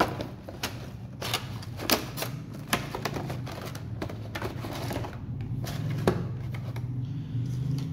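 A cardboard retail box being opened and its plastic tray insert pulled out: a long run of irregular crackles and clicks of plastic and cardboard, over a low steady hum.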